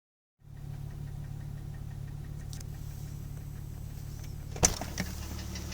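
Toyota 1JZ-GTE 2.5-litre turbocharged straight-six running at idle with a light, even metallic ticking knock, which the owner places around cylinders 5–6 even though the valve shim clearances are within spec. Near the end comes one loud sharp clack, and the ticking then sounds louder and clearer.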